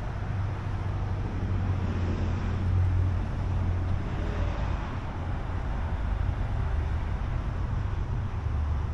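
Steady low rumble of vehicle noise with an even hiss above it.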